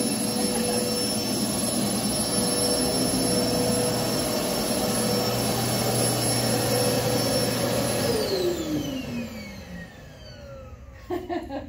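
An electric motor-driven machine runs with a steady whine over a rush of air, then is switched off about eight seconds in; its pitch falls over a couple of seconds as it winds down.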